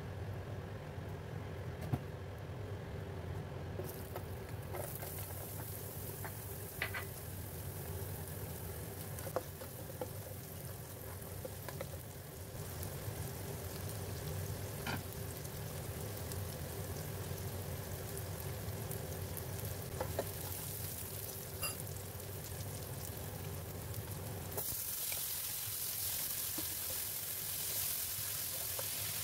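Chopped garlic and shallots sizzling in hot oil in a non-stick wok, stirred with a spatula that gives a few light clicks. About 25 seconds in, diced tomato goes into the pan and the sizzle turns louder and brighter. A steady low hum runs underneath.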